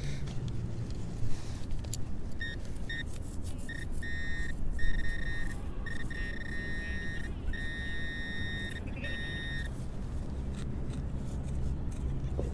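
Handheld metal-detecting pinpointer sounding over a buried target: short electronic beeps at first, then longer warbling tones, stopping a few seconds before the end. Rustling of grass and soil as it is probed through the turf.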